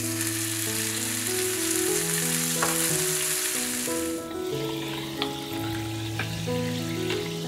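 Steaks sizzling in a hot cast-iron pan, the sizzle stopping about four seconds in. After that come a few light clinks as sparkling water is poured over ice.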